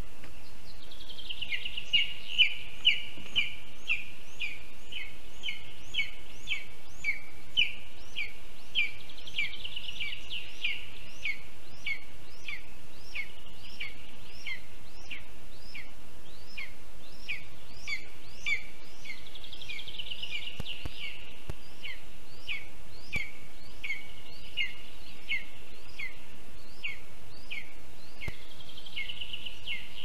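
Lesser spotted eagle chick begging: a high, short, downward-sliding call repeated about twice a second, loudest a couple of seconds in, over a steady low hiss.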